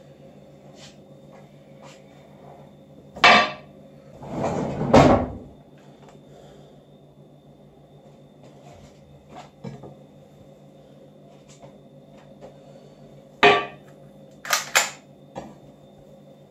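Sharp household knocks and clatter of objects being handled: a knock about three seconds in, a rustling clatter a second later that ends in another knock, then a further knock followed a second later by two quick sharp clicks, with small ticks in between.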